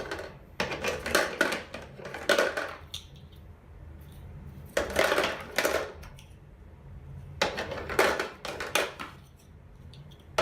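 Fisher-Price Baby's First Blocks hard plastic shape blocks clattering and knocking together as they are handled, in three bursts of quick clicks and knocks.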